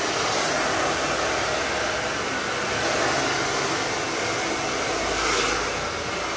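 Handheld hair dryer running steadily, blowing hot air through hair to dry it straight, with small swells in level as it is moved about the head.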